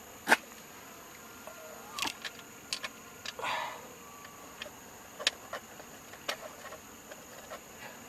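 Scattered sharp clicks and knocks of small parts being handled while reassembling steering column trim: plastic cover pieces and screws, with a short rustling scrape about three and a half seconds in. The loudest click comes right at the start.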